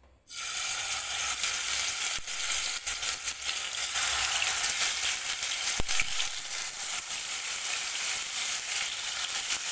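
Marinated chicken pieces sizzling as they are laid into hot oil in a kadai to fry. The sizzle starts suddenly as the first piece goes in and then holds steady, with a few light clicks.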